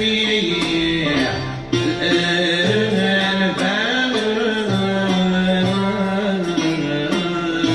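Live Algerian ensemble music: plucked banjo and long-necked lute with a bowed string over a hand-played frame drum, the melody bending up and down without a break.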